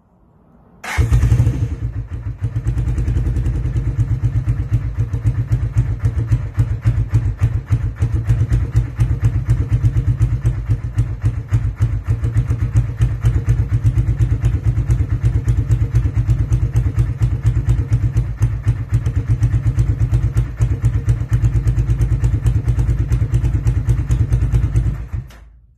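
1985 Honda Shadow VT500C's V-twin starting about a second in and then idling steadily through an empty Emgo shorty slip-on muffler with no baffle or packing, before being shut off near the end.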